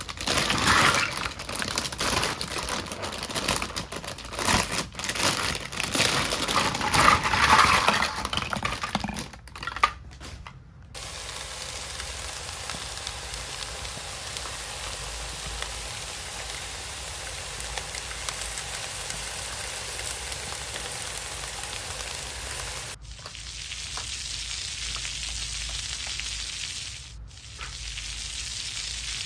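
Crinkling and clicking from packaging and small plastic pieces being handled for about nine seconds, then a steady sizzling hiss like food frying in a pan. The hiss breaks off twice briefly.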